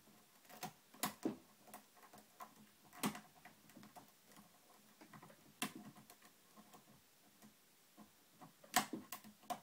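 Small irregular metallic clicks and taps of a hook pick and tension wrench working the pins of a TrioVing oval pin-tumbler cylinder, probing pin by pin for one that has not set. A few sharper clicks stand out, the loudest near the end.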